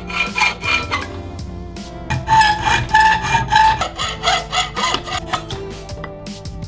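Hacksaw strokes rasping through a hollow rectangular metal bar held in a vise, with background music playing over them.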